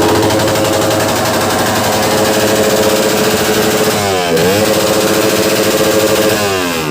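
Racing motorcycle engine held at high revs with a rapid, buzzing pulse; about four seconds in its pitch drops sharply and climbs straight back, and near the end it falls again, like the revs dropping through a gear change.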